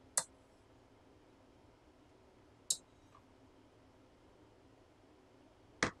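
Three short, sharp clicks a few seconds apart in a quiet room, the last one the loudest and deepest.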